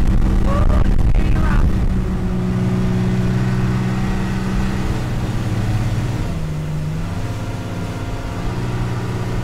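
Boat engine running steadily at speed through choppy water, with wind and rushing water from the hull. The engine note dips briefly about six seconds in, then picks up again.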